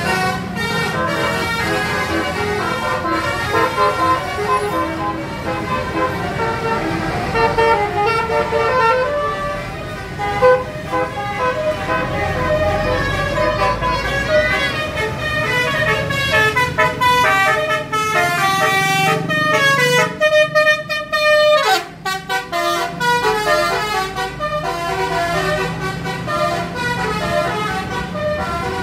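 Indonesian 'telolet' bus horn, a set of multi-tone horns, playing quick melodic tunes of short notes over a bus engine running underneath. About twenty seconds in, a rapid run of sliding notes rises and falls.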